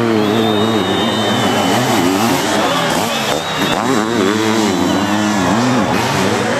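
Several sidecar motocross outfits' engines racing at full throttle, their pitch swinging up and down as the riders work the throttle over the dirt track, over a steadier engine drone.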